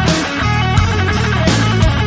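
Background rock music with distorted electric guitar and drums.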